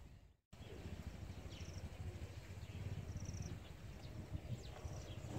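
Outdoor ambience: wind rumbling on the microphone, with a few short, high bird chirps scattered through it.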